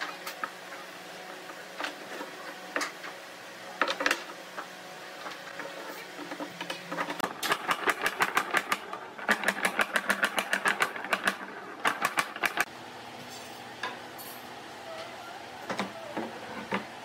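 Claw hammer tapping the edges of pine boards on a workbench, driving the boards together: two fast runs of light blows, about six a second, in the middle, with scattered single knocks before and after.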